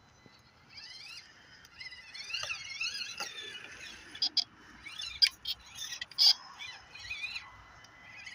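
Axial SCX24 Deadbolt micro RC crawler's small electric motor and gears whining, rising and falling in pitch with each throttle blip as it crawls. A few sharp clacks come about four, five and six seconds in.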